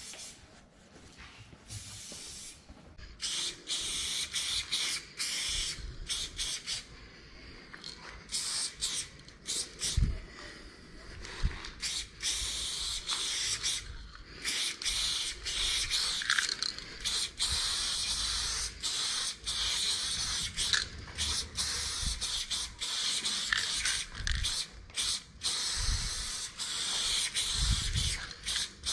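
Aerosol spray-paint can hissing in repeated bursts of varying length, stopping and starting between strokes as a graffiti outline is painted on a wall. A few brief low thuds come in between, the loudest about a third of the way in.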